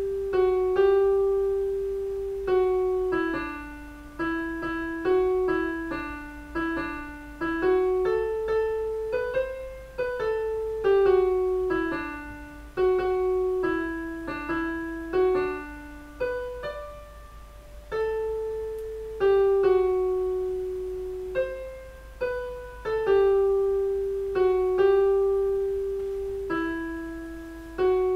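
Piano melody played back by songwriting software from the written score: a single unaccompanied line, one note at a time, each note struck and fading.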